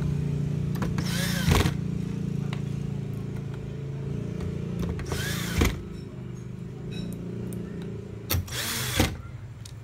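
Electric screwdriver turning screws in a TV's power-supply board: three short runs of the motor, each about half a second, with the whine bending in pitch. A steady low hum lies underneath.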